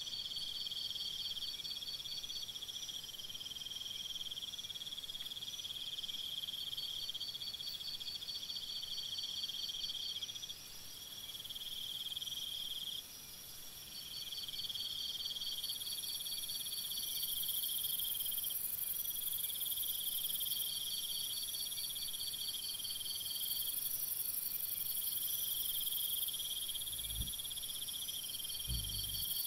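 Chorus of chirping insects: several overlapping pulsing trills that start and stop at different times, with a very high-pitched band growing louder about halfway through. Two brief low thuds near the end.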